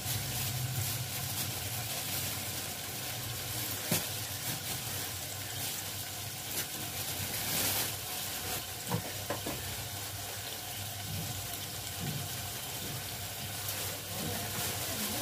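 Chopped bottle gourd (lauki) and meat sizzling as they fry in oil in a steel pot, a steady hiss with two sharp clicks, about four and nine seconds in.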